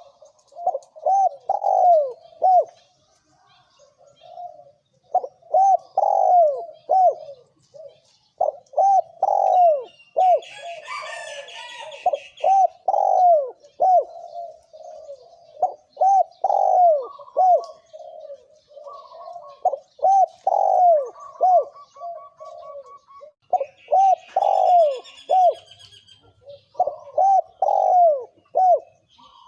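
Spotted dove cooing in repeated phrases of several short, falling coo notes, a new phrase every few seconds, in the 'thổ kim' calling style used as a lure for wild doves. Fainter high chirps from other birds come in twice.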